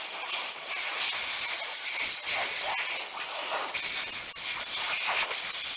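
Compressed air hissing steadily from a blow-gun nozzle, blowing dirt out of the passages of a small plastic carburetor part to clear its blocked jets.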